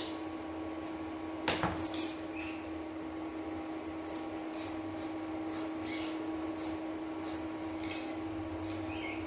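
A small knife scraping the skin off a bottle gourd in short, repeated peeling strokes, with a quick cluster of sharp clinks about one and a half seconds in. A steady low hum runs underneath.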